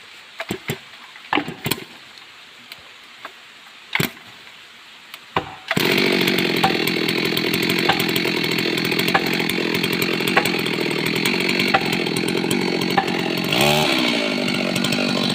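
Stihl MS 382 two-stroke chainsaw: a few sharp knocks, then the saw starts running about six seconds in and keeps running loud and steady. Its engine pitch drops and climbs again near the end.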